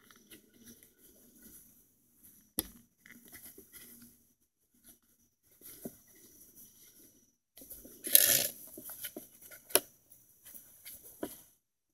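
Heavy work gloves rustling and rubbing on a garden hose and its brass fitting while the hose is handled, with intermittent soft scuffs. There is a sharp knock about two and a half seconds in, a louder scraping rustle about eight seconds in, and a couple of clicks near the end.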